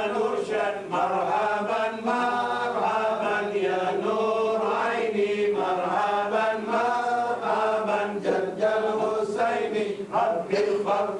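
Background vocal chanting: a voice sings long melodic phrases over a steady sustained drone.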